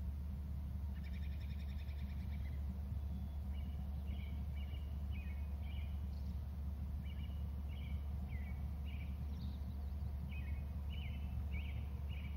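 A bird calling: a short trill about a second in, then a run of short chirping notes repeated every half second or so, over a steady low hum.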